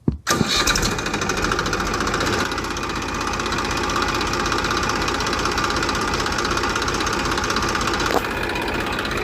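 Small motor running steadily under a fast, even rattle, starting abruptly just after the beginning and cutting off at the end.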